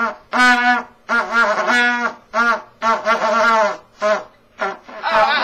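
Trumpet played by an unskilled player: a string of about eight short, separately blown notes, mostly on the same low note, some of them wavering and bending in pitch.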